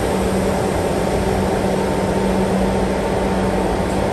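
New York City IRT subway train standing at a station platform, its onboard equipment giving a steady hum with a constant low tone over a wash of station noise.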